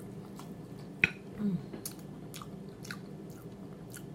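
Close-up mouth sounds of someone eating fried, gravy-smothered chicken: wet chewing and lip smacking, with sharp clicks, the loudest about a second in. A short falling hum from the eater about a second and a half in.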